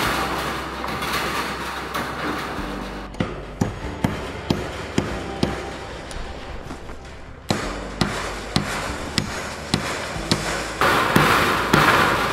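Hammer driving galvanized smooth-shank fence staples into a 2x4 board to fasten a steel cattle panel, in two runs of sharp, evenly spaced blows about two a second. Louder bursts of rushing noise come at the start and again about eleven seconds in.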